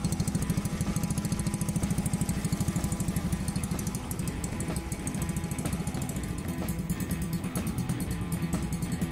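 A 2019 WMX moped's small engine idling, with a steady, fast putter. It drops a little in level about four seconds in.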